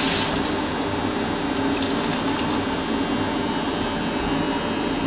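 Water running from a kitchen mixer tap into the sink, a steady rush that eases a little just after the start.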